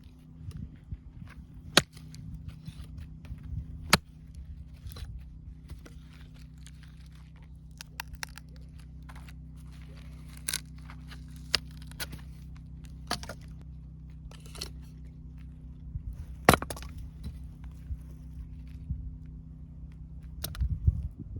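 Scattered sharp knocks and cracks of firewood being handled and worked, a few of them loud, over a steady low hum.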